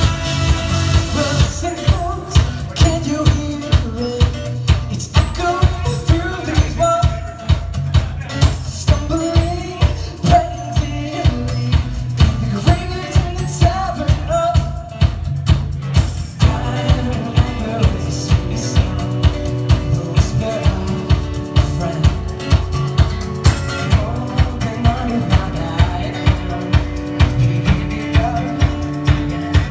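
Live band music: a male voice singing over strummed acoustic guitar and a steady drum beat of about two strikes a second, the melody giving way to longer held tones about halfway through.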